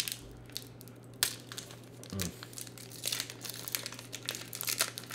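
Pokémon booster pack's plastic-foil wrapper being torn open and crinkled by hand, an irregular run of crackles that grows busier in the second half.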